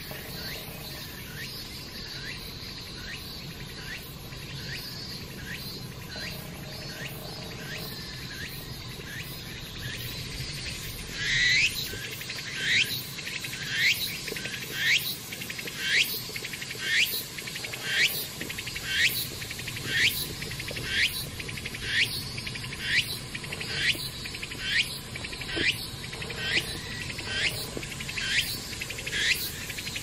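A cicada singing: a regular string of short rising calls, about one a second, faint at first and much louder from about eleven seconds in, over a steady high insect hiss.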